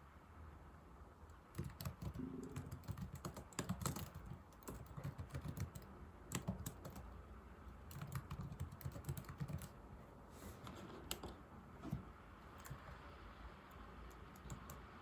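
Typing on an old laptop keyboard: quick runs of keystrokes starting about a second and a half in, thinning out after about ten seconds, with a last few taps near twelve seconds.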